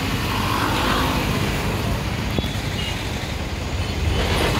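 Street traffic noise with a steady low engine rumble from idling heavy vehicles.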